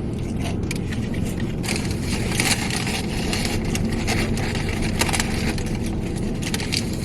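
Steady low hum of a vehicle engine running, heard from inside the truck's cab, with short rustling crackles over it, most around two to three seconds in and again near five seconds.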